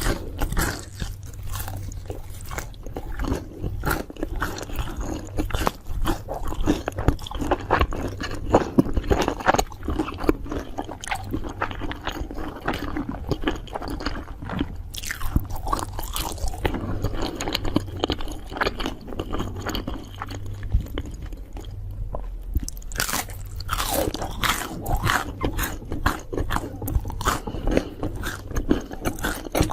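A person eating something crunchy: repeated bites and chewing, with irregular crunching crackles that keep going with hardly a pause.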